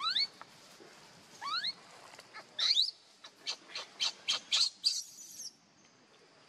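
Baby macaque crying: three high-pitched squeals that each rise sharply in pitch, then a quick run of short, sharp squeaks that stops about a second before the end.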